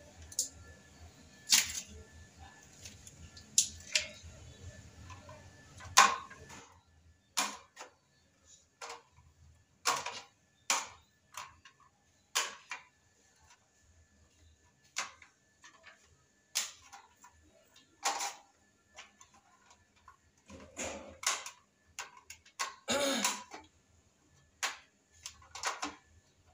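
Metal putty knife scraping and tapping on a tile piece and can rims while mixing two-part non-sag epoxy. The sound is a string of short, irregular scrapes and clicks, with one longer scrape about three-quarters of the way through.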